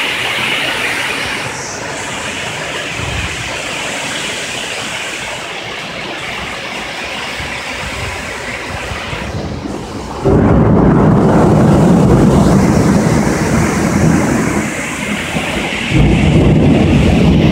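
Heavy rain pouring in a windy thunderstorm, a steady hiss. About ten seconds in, a loud low rumble starts suddenly and lasts a few seconds, and another starts near the end.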